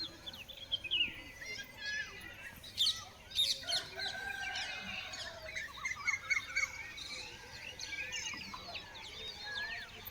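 Dawn chorus of many small birds chirping and whistling, with a rooster crowing once about four seconds in.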